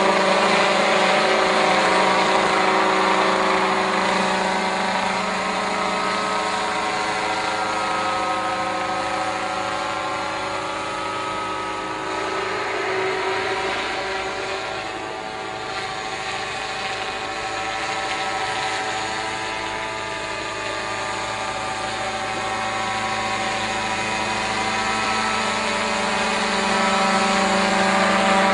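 A motorised sprayer running steadily with a many-toned machine hum. Its pitch drifts a little, and it grows quieter around the middle and louder again near the end.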